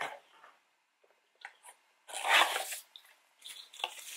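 Cardboard boxes and paper packing being handled: a few short rustles and scrapes, the loudest about two seconds in.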